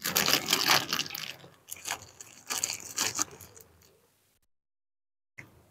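Close-up chewing of grilled chicken and skin, in dense crackly bursts for about the first second, two more bursts of chewing about two and three seconds in, then dying away.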